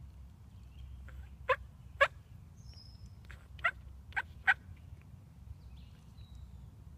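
Turkey call worked by the hunter: five loud, short, sharp hen-turkey notes, two and then three, meant to make a tom shock-gobble.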